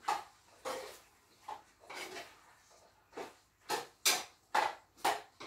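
A cooking utensil knocking and scraping against a pot on the stove in a run of about ten short strokes as the stew is stirred, coming more regularly and louder in the second half.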